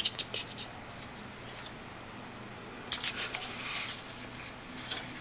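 Soft rustling and small scratchy clicks, with a louder cluster about three seconds in.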